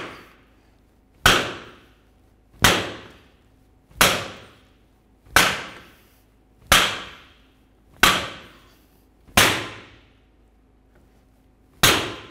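Hammer blows driving a new driveshaft carrier bearing onto its shaft against a steel tube: eight sharp metal strikes, about one every second and a half, each ringing briefly. The strikes change from a click to a clunk as the bearing bottoms out on the shaft.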